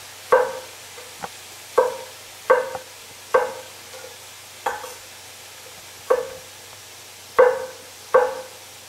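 Chef's knife dicing Roma tomatoes on an end-grain wooden cutting board: nine sharp knocks of the blade against the board at uneven intervals, about one a second, each ringing briefly.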